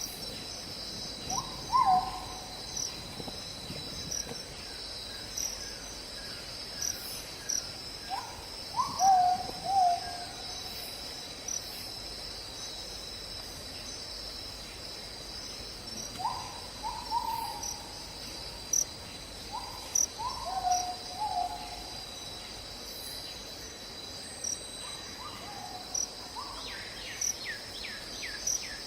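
A quail calling: short groups of hooting notes, each rising then dropping, repeated every few seconds. Behind them, insects keep up a steady high trill.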